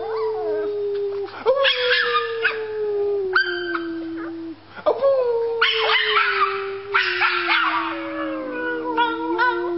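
Puppy howling: a long, low, held howl that slowly falls in pitch, with higher whining howls and yips breaking in over it several times.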